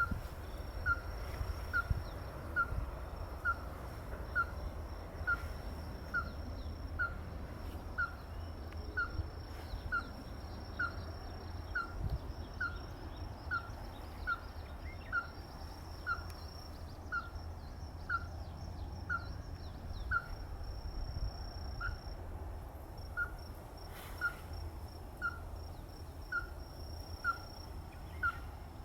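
Ruddy-breasted crake calling: a long, even series of short, clipped notes, about two a second, with a brief pause a little past the middle. A steady high insect trill runs beneath it.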